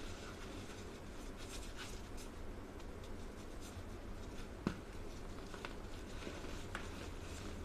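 Hands squeezing grey powder into a ball and crumbling it apart: soft crunching and rustling with scattered small clicks, one sharper click a little past halfway, over a steady low hum.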